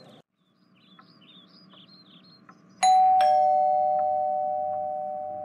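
Two-note ding-dong doorbell chime about three seconds in, a higher note then a lower one, ringing on and slowly fading. Before it, faint chirping in the background.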